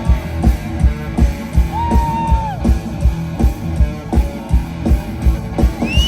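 Loud rock music with guitar over a steady, heavy kick-drum beat; a single high note is held for about a second, two seconds in.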